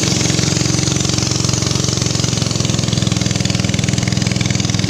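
Small boat engine running steadily under way, driving a narrow longboat along a river, with a fast, even pulse.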